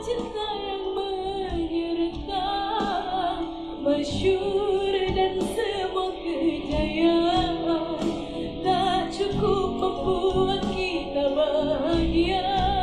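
A woman singing a soft pop-dangdut song live into a microphone, with instrumental accompaniment and wavering held notes.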